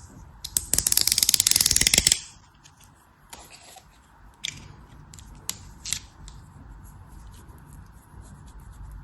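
Crisp, rapid crunching as a blade cuts through crumbly material, loud for about a second and a half, then a few scattered light clicks and crackles.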